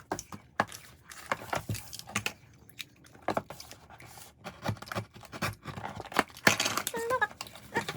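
Blind-pack plastic wrappers of random keyrings being torn open and handled, an irregular run of crinkles, rustles and small clicks.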